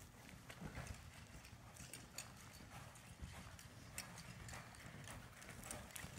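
Faint, dull hoofbeats of a horse loping and turning around a barrel on soft arena dirt, in an uneven string of thuds.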